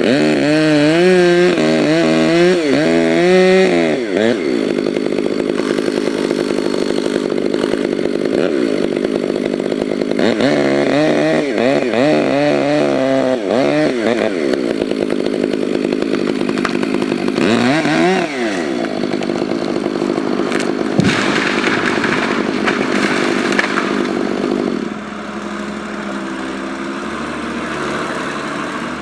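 Ported Stihl 500i two-stroke chainsaw running hard while cutting beech, its engine note rising and falling several times. Near the end the sound drops to a quieter, steadier level.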